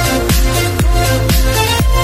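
Electronic dance background music with a steady kick drum, about two beats a second.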